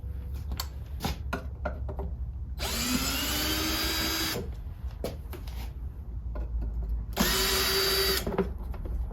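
Power drill-driver whirring in two runs, the first about two seconds long with its pitch rising as it starts, the second about a second long, backing Phillips screws out of an air compressor's cover. Clicks and handling knocks between the runs.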